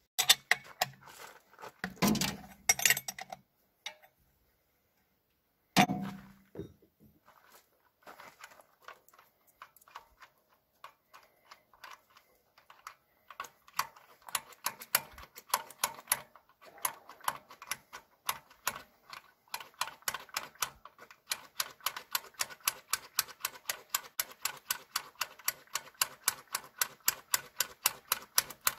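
Hand-priming plunger on a diesel tractor's fuel lift pump being pumped over and over, a fast, steady run of clicks that starts about halfway through and gets quicker toward the end. The new lift pump is not drawing fuel up. A few loud knocks and clatter come in the first few seconds.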